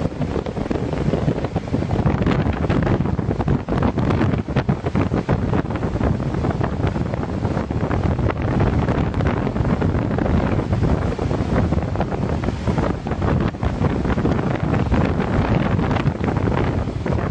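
Storm wind buffeting the microphone over rough seas surging and breaking: a loud, continuous rushing noise that swells in irregular gusts.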